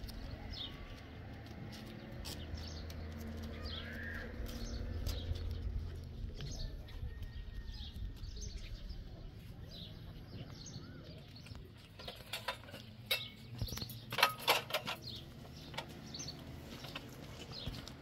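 Small birds chirping on and off over a low steady rumble, with a burst of sharp clattering knocks about two thirds of the way through.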